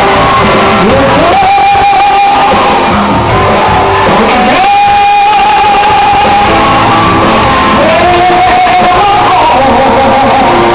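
Woman singing live with a band, gliding up into and holding three long high notes, over guitar and full accompaniment in a large hall.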